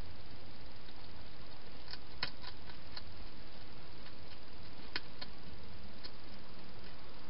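A hedgehog feeding at bowls inside a plastic feeding station: a few sharp clicks and crunches, in a cluster about two seconds in and a couple more about five seconds in, over a steady hiss.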